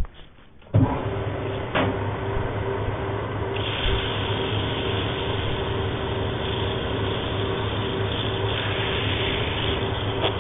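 Wood lathe switched on about a second in, its motor running with a steady hum. A couple of seconds later, 120-grit sandpaper is pressed by hand against the spinning hardwood turning, adding a steady sanding hiss that eases briefly and comes back near the end.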